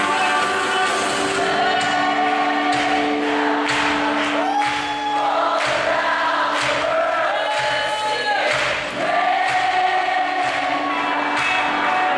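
Live Christian worship music: voices singing long held notes over a band with drums.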